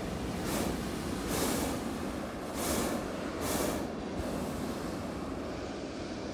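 Hot air balloon propane burners firing overhead: four short blasts of roaring hiss within about three and a half seconds, over a steady low rumble.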